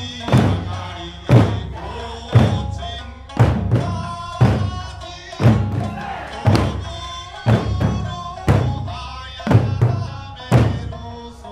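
An Eisa troupe's large barrel drums (ōdaiko) and small hand drums (pāranku) beaten in unison: a heavy stroke about once a second, some quickly doubled. Under the drums runs Okinawan sanshin music with singing.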